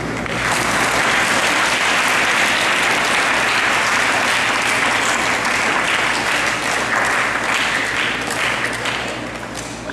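A crowd of people clapping, building up about half a second in, holding steady, then dying down near the end.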